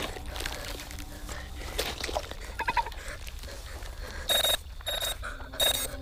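Film soundtrack: a steady low rumble with scattered clicks, then from about four seconds in a series of short, shrill, ringing bursts, louder than the rumble.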